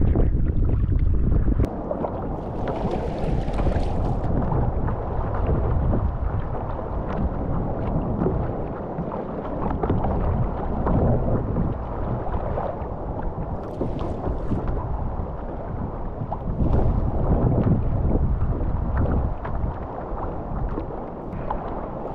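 Kayak paddle strokes splashing through choppy sea water as the kayak is paddled along, in irregular strokes. Wind rumbles on the microphone for the first couple of seconds.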